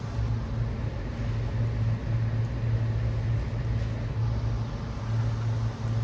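A steady low mechanical hum over faint background noise, swelling and easing slightly.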